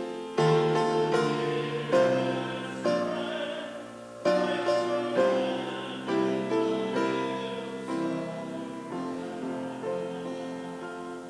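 Church music: slow chords struck on a piano, each left to ring and die away, the last one fading out near the end.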